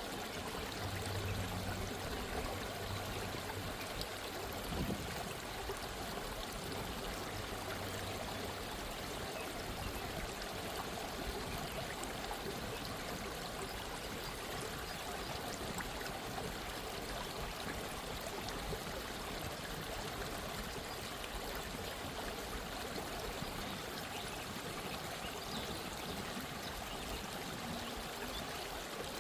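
Gentle stream of running water, flowing and trickling steadily.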